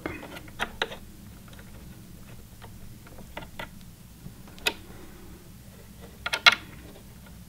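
Small screwdriver turning and seating the needle-plate screws on a Singer Heavy Duty sewing machine: scattered light clicks and ticks, with the sharpest group about six seconds in.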